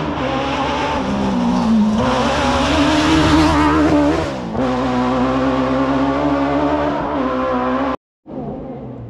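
Rally car engine at full throttle on a gravel special stage, heard approaching. The revs climb and drop with gear changes about 2 and 4.5 seconds in. About 8 seconds in the sound cuts off abruptly and comes back as a quieter engine.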